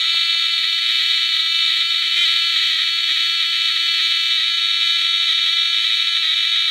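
High-voltage electric arc from a homemade fish stunner buzzing steadily with a high-pitched tone as the spark is drawn between a probe and a terminal bolt during testing.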